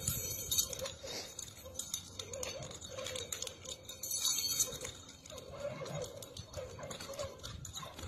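Nunchaku being swung and spun by hand, their chain and sticks clicking and rattling in quick irregular taps.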